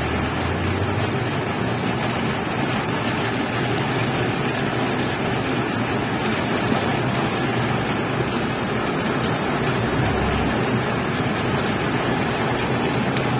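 Steady, even din of street traffic.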